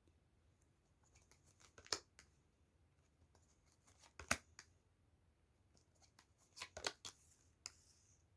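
Faint handling of tarot cards: a few sharp card snaps and taps as cards are drawn and laid down, with a brief rustle near the end.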